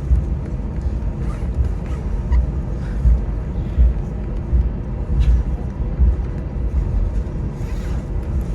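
Low interior rumble of a slowly moving vehicle, with irregular low thumps and jolts.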